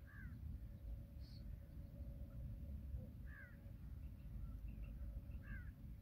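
A bird calling a short harsh note three times, a couple of seconds apart, with a fainter higher call about a second in and a few faint chirps, over a low steady rumble.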